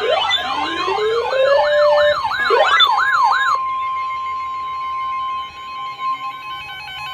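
Several electronic siren wails sweeping up and down over one another, cutting off about three and a half seconds in. A steady single-pitch alert tone sounds under them and carries on after they stop, joined near the end by a stepped, warbling beep pattern.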